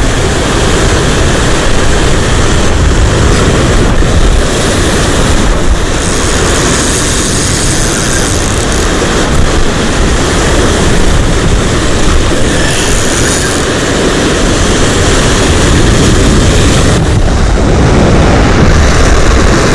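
A loud, steady rush of wind buffeting the microphone, mixed with surf, with no clear single event.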